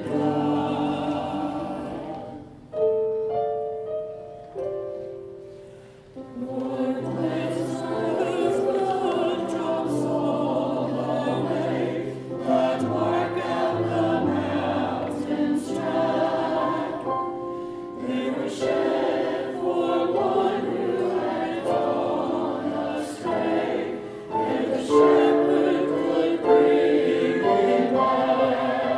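A choir singing with accompaniment, in held notes. About three to six seconds in the music thins to a few single sustained notes and grows quieter before the full ensemble comes back in.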